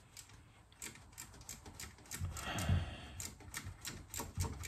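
Hand socket ratchet clicking steadily, about three clicks a second, as it backs out a loose bolt; a finger pressed on the socket keeps the ratchet catching.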